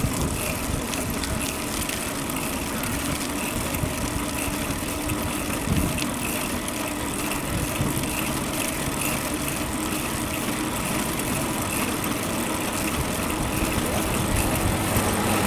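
Steady rushing noise of a bicycle ride along a city street: wind on the microphone and road noise, with a low rumble of traffic, growing louder near the end.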